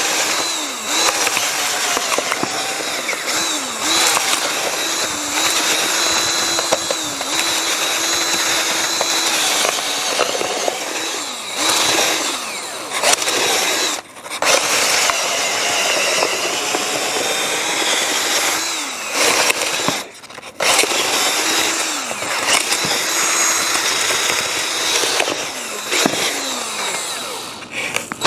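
Power drill spinning a 6-inch spade bit as it bores into the foam form of a deer mount. The motor's whine dips repeatedly as the bit bogs under load, and the drill stops briefly twice.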